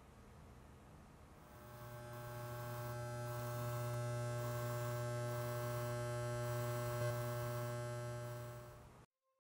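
A low electrical hum with a buzzing edge swells in over the first few seconds and then holds steady, with an uneven pulsing in its higher tones. It cuts off suddenly near the end.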